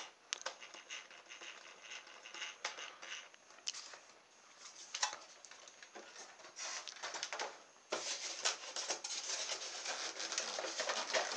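Handling noise of a plastic model plane and a polystyrene foam box insert: light taps and scuffs, then from about eight seconds in a louder, continuous scraping and rubbing as a plastic charger is worked out of its snug foam slot.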